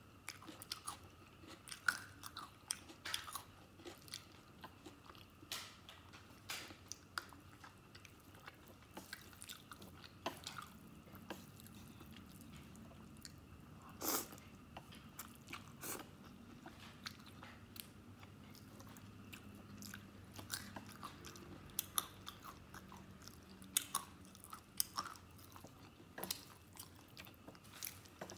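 Close-miked mouth sounds of eating noodles and soft stewed pork: chewing with frequent wet clicks and lip smacks. About halfway through, a longer, louder slurp as a mouthful of noodles is drawn in.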